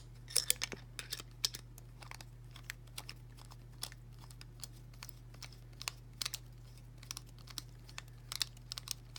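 Small, irregular metallic clicks and ticks as a tiny screw and screwdriver are worked against a padlock body, the screw not catching its threads.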